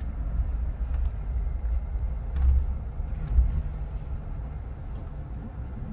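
A car's engine idling and rolling slowly, heard from inside the cabin as a steady low rumble, with two louder low bumps about two and a half and three and a half seconds in.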